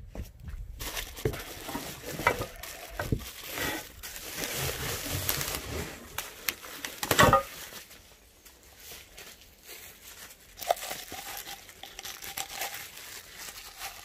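Bubble wrap crinkling and rustling as it is pulled off steel hammock-stand tubes in a cardboard box, with a loud crackle about seven seconds in, then quieter handling.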